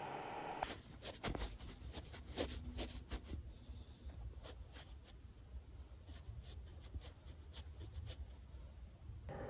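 Faint, irregular scratching and rustling on bedding as a sleeping dog's paws twitch and kick in a dream, over a low steady hum. A brief steady hiss comes before it, in the first second.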